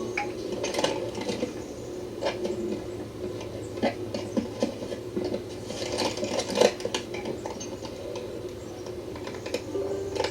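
Handling noise from a VHS-C camcorder's own tape recording, played back: scattered clicks, taps and rubbing over a steady low hum.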